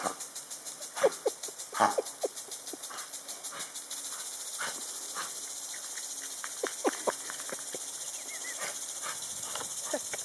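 Impact lawn sprinkler spraying, ticking in a steady rhythm that turns quicker and more even about four seconds in. A dog's short yips and snaps sound over it, the loudest near the start.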